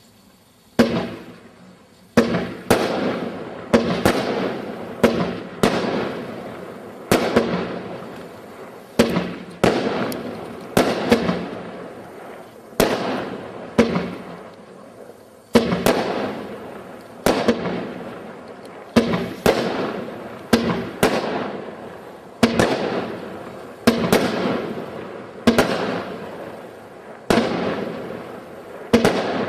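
Consumer fireworks from a display pack going off in a steady volley, a sharp bang every second or two, each trailing off in a fading crackle.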